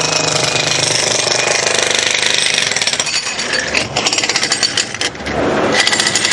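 Jackhammer hammering rapidly and steadily on masonry, easing off briefly about four seconds in and picking up again near the end.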